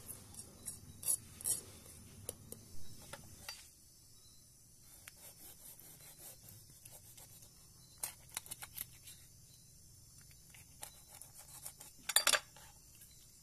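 Long knife blade scraping along a torpedo scad's skin on a wooden cutting board, scaling the fish in short, irregular rasping strokes with a louder cluster of scrapes near the end.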